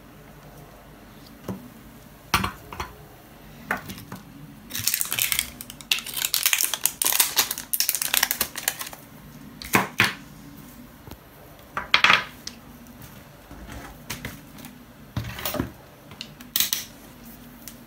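Small hard objects clinking and clattering as they are handled on a workbench: a busy run of rattling from about five to nine seconds in, then single sharp clicks every two seconds or so.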